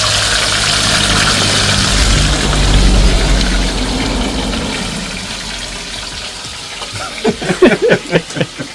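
Fish frying in a pot of hot oil, a steady sizzle that gradually dies down, with a low droning hum underneath for the first few seconds. A voice speaks near the end.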